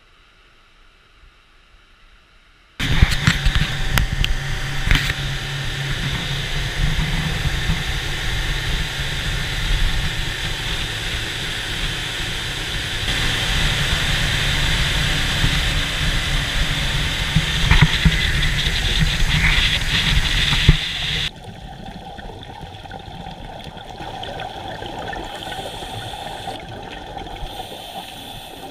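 Faint background for about three seconds, then the steady rush of a motorboat underway: engine, wind and water noise. After about eighteen seconds this gives way abruptly to the muffled hiss and bubbling of water around an underwater camera.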